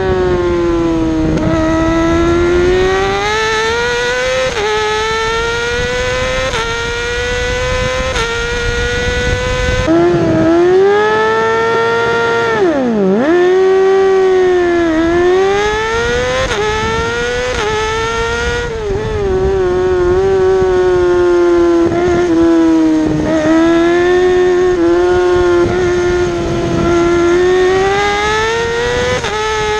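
Yamaha YZF-R6's inline-four engine at racing revs, heard from onboard the bike: the pitch climbs steadily and drops sharply again and again as it works through the gears. About halfway through the revs fall low and climb back up.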